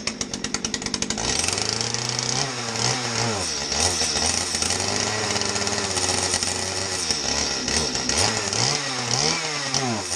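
Stihl MS211 35cc two-stroke chainsaw engine catching with rapid, uneven firing, then running, its revs rising and falling a few times.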